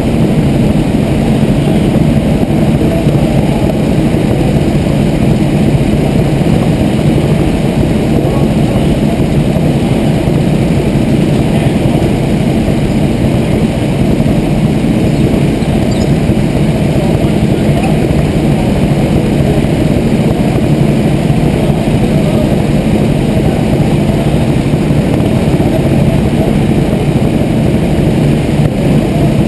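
Go-kart engines running, a loud, steady, unchanging noise heard through a camera mounted on one of the karts.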